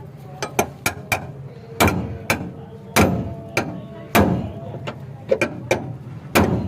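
Hammer blows on a car's sheet-metal body panel as a dent is worked out: irregular strikes, light taps between several heavy blows that ring briefly, over a steady low hum.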